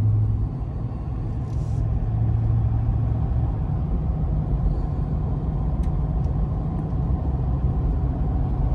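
Steady low drone of a 2022 Ford F-250 Super Duty Tremor pickup cruising, engine and road noise heard from inside the cab.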